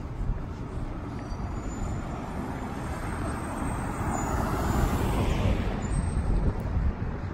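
Street traffic noise with a steady low rumble; a vehicle passes, swelling and fading about four to six seconds in.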